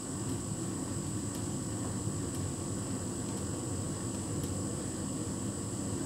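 Hotpoint heat pump tumble dryer running with a duvet tumbling in the drum: a steady low hum and rumble with a thin high whine over it, and a light tick about once a second.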